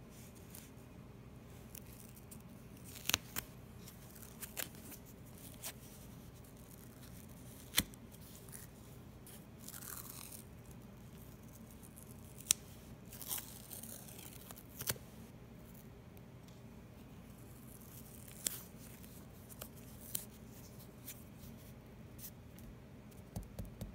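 Adhesive medical tape being handled and wrapped around a fingertip: scattered small clicks and taps, with a few short rasps of tape being pulled off the roll or torn.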